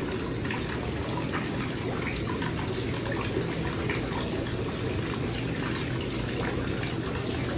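Steady trickling water, with a few faint ticks over it.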